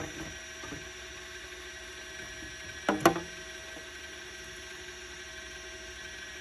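Goser portable mini washing machine running on setting B, submerged in sink water: a steady, faint electric hum. One short, louder sound comes about three seconds in.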